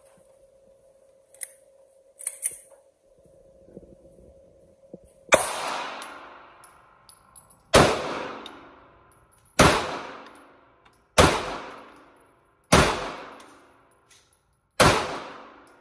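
Pistol fired six times in slow, deliberate shots about one and a half to two seconds apart, each shot echoing and dying away in an indoor shooting range. A few light clicks come before the first shot, which falls about five seconds in.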